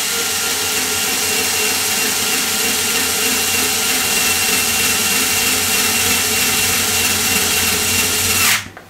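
Cordless drill running steadily, spinning the threaded spindle of an airgun spring compressor; it cuts off abruptly near the end.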